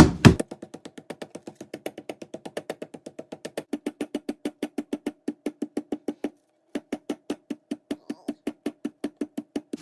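Chicken breast being pounded thin under plastic wrap with a meat mallet: rapid, even blows, about six a second, each with a short ring from the board. There is a brief pause a little past six seconds.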